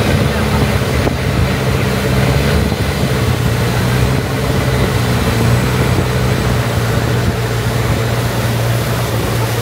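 Motorboat engine running steadily, a low drone under a wash of noise.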